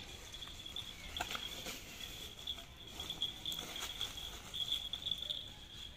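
Young dogs playing in dry grass and weeds: rustling and crackling of stalks with paw patter, loudest in a few sharp crackles over the first few seconds. A steady high chirring, typical of insects, runs underneath.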